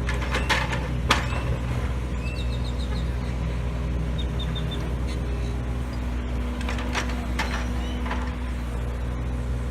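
John Deere 35G compact excavator's diesel engine running at a steady pitch, with a few sharp knocks near the start and again in the second half.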